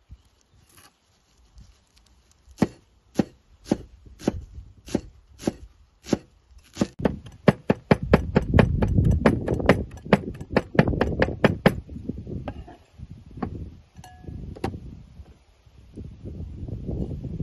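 Broad chef's knife chopping fresh herbs on a wooden cutting board: single chops about twice a second, speeding into rapid chopping, which stops about twelve seconds in. Softer, irregular sounds follow.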